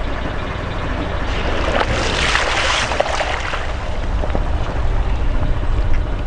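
Car tyre rolling over floral foam and crushing it: a crunching hiss with scattered crackles from about one and a half to three seconds in, over a steady low rumble.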